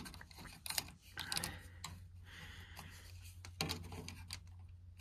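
Scattered light clicks and knocks from someone moving about and handling things, over a steady low hum.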